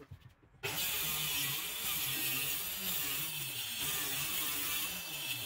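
Handheld electric circular saw cutting through a 12 mm wooden board panel, a steady loud whine of blade and motor whose low note wavers slightly as it cuts. It comes in suddenly about half a second in.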